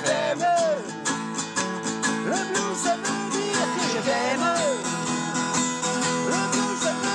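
Background music: a strummed acoustic guitar with a steady beat and a melody line over it.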